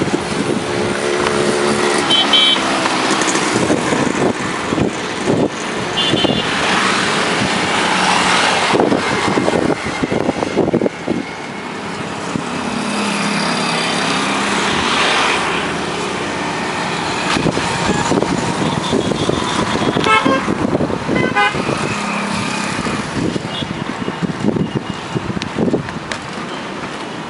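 Road traffic passing steadily, with several vehicle horns tooting at intervals.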